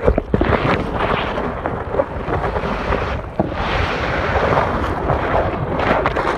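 Muffled rushing and sloshing of pond water against a phone's microphone held under the surface, with scattered knocks and clicks from the phone being moved among the reeds.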